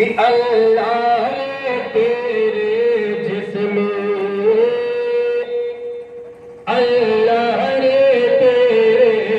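A man's voice singing a naat (Urdu devotional poem) into a microphone, in long held, ornamented notes. One phrase fades out about six and a half seconds in, and a new one starts loudly just after.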